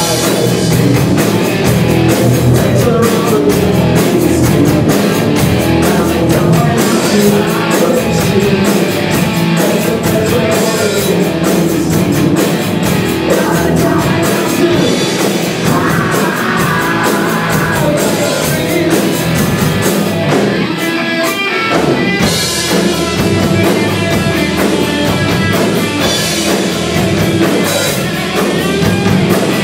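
Rock band playing live: distorted electric guitar, bass guitar and drum kit, with a steady, driving beat.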